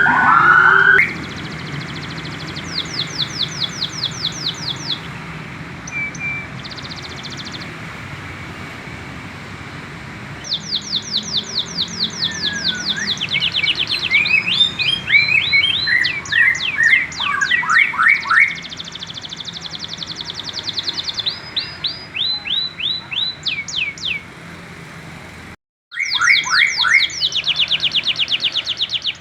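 Young canary singing in bursts of rapid trills, strings of quick repeated high notes, some sweeping lower, with short pauses between phrases: the practice song of a young bird still learning to sing. A louder, lower warbling sound fills the first second and stops abruptly, and the audio cuts out briefly about 25 seconds in.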